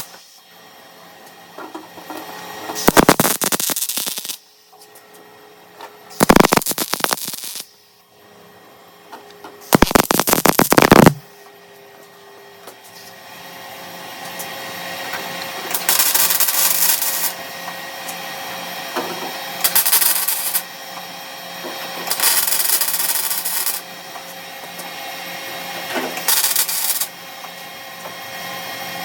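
Welder laying short stitch welds on a car's steel quarter panel: seven separate crackling bursts about a second or so long each, with pauses between them. The first three are the sharpest; the later ones sound hazier over a steady background hum.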